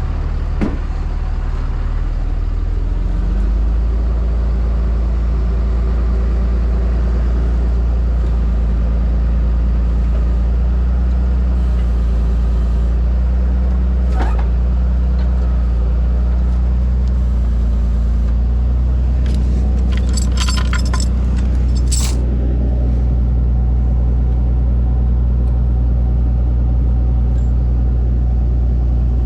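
Tow truck engine running steadily, picking up speed slightly about three seconds in, with a few sharp metallic clanks near the middle and later on.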